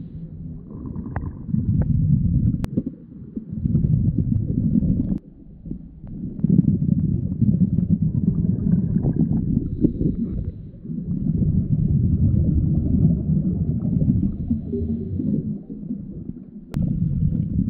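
Scuba regulator exhaust heard underwater: low bubbling noise in long breaths of a few seconds each, with short quiet gaps between them as the diver inhales.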